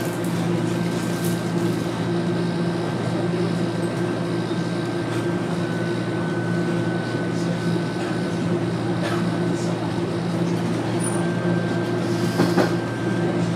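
Inside a Toronto Rocket subway car running at speed: a steady rumble with a low hum and a thin steady whine over it. There is a brief knock near the end.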